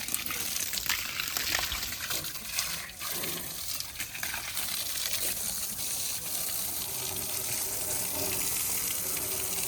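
Running water gushing steadily, with a few light clicks in the first few seconds.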